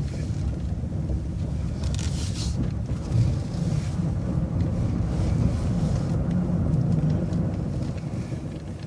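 A city bus running as it moves off: a steady low engine and road rumble, with a short hiss about two seconds in.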